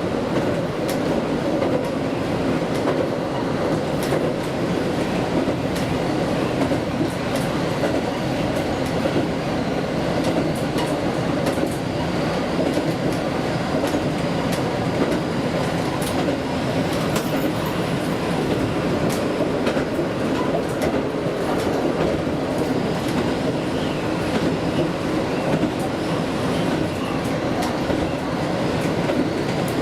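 Local train 2427D, a KiHa diesel railcar, running along the line with a steady rumble and occasional clicks from the wheels.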